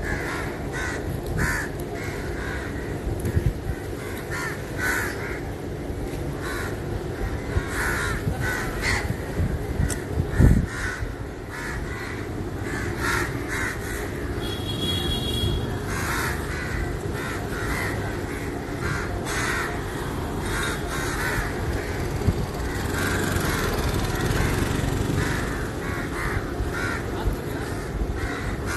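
A flock of crows cawing again and again, calls overlapping, over steady street rumble; a single loud thump about ten seconds in.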